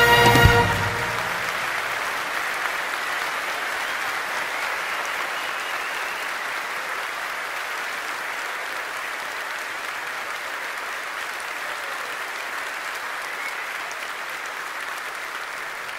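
An orchestra's final chord ends with a low hit about half a second in. A large audience then applauds steadily, slowly growing quieter.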